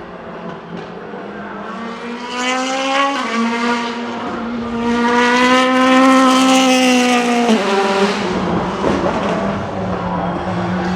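Mercedes-AMG C63 DTM race car's 4.0-litre V8 accelerating hard: the revs climb, dip at a gear change about three seconds in, then climb again to the loudest point before cutting off sharply near eight seconds in. A steady low hum runs underneath.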